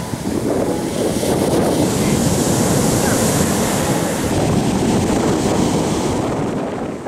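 Sea surf breaking and washing up over a sandy shore: a loud, steady rush of churning water.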